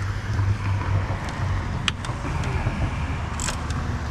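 Steady low rumble with a few short, sharp clicks of hand tools on metal while a stubborn part is worked loose in a car's engine bay.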